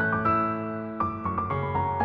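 Slow background piano music, a few notes struck about a second in and left to fade.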